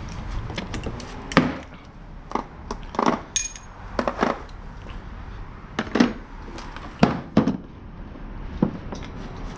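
Irregular sharp knocks and clicks, about ten of them, with one short metallic clink about three and a half seconds in: hand tools being handled and set down on a concrete garage floor.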